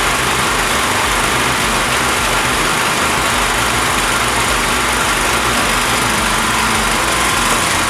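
Large industrial wood chipper running, a loud, steady mechanical roar and rush with no clear rhythm or change.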